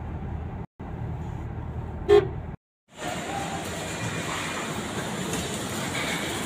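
Steady road noise inside a moving car, with one short, loud car-horn toot about two seconds in. After a brief cut-out the sound changes to a steady hissy ambience.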